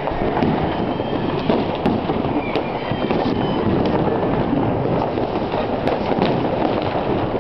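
Dense, continuous crackling and popping of many fireworks and firecrackers going off at once, with a few short whistles about two to three seconds in.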